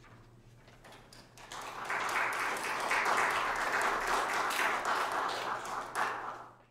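Applause: hands clapping, starting about a second and a half in after the final piano chord has died away, then fading out near the end.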